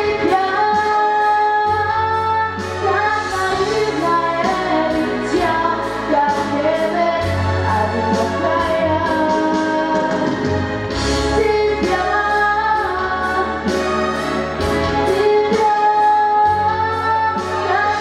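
A young woman sings a song into a microphone over instrumental accompaniment with a bass line and a steady beat.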